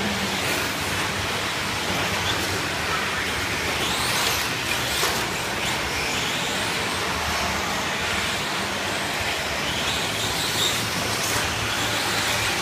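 A pack of 1/10-scale electric RC short course trucks racing: a steady noisy wash with electric motor whines rising and falling as trucks pass.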